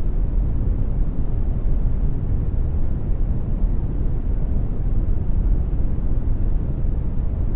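Generated brown noise: a steady, deep rumbling hiss, strongest in the bass and falling away toward the treble, with no change.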